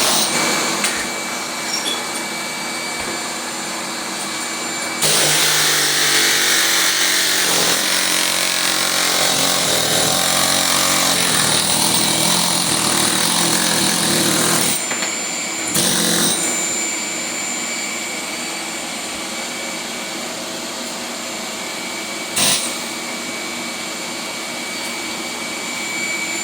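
A pneumatic air hammer running. It is louder in a long run from about five to fifteen seconds in, and gives two short louder bursts later.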